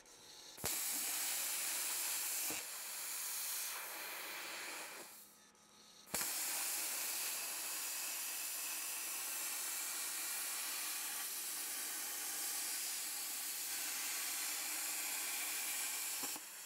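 Magnum CUT-120 plasma cutter with a P-141 machine torch cutting steel plate: the arc starts abruptly with a steady hiss. It dies out for about a second around five seconds in, then strikes again and hisses steadily almost to the end.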